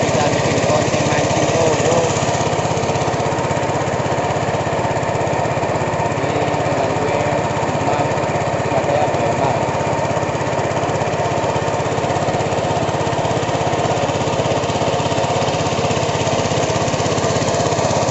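A small engine running steadily at an even speed throughout.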